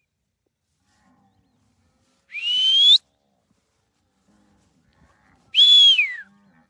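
Two short human whistles used to drive cattle: the first rises in pitch; the second, about three seconds later, holds and then falls away.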